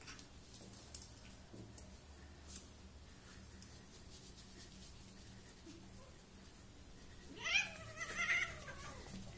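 Domestic cat giving one long, wavering meow near the end, its pitch bending up and down. A few sharp clicks come in the first three seconds.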